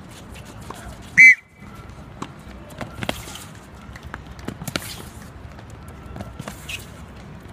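A referee-style whistle gives one short, loud blast about a second in. Running footsteps on the hard court follow as players sprint off.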